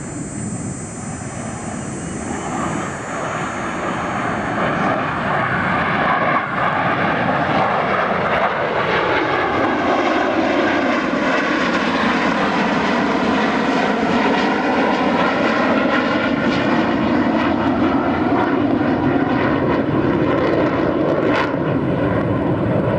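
Twin-engine jet noise from two Blue Angels F/A-18 Super Hornets flying past in formation. It grows louder over the first few seconds, drops in pitch about eight to ten seconds in as they pass, then carries on as a steady lower rumble.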